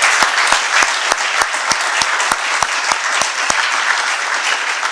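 Audience applauding, with one clapper close to the microphone standing out in even claps about three a second until about three and a half seconds in; the applause thins toward the end.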